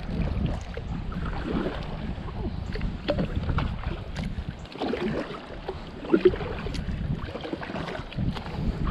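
Kayak on moving river water: water sloshing and trickling around the hull with scattered small knocks and drips, and some wind on the microphone.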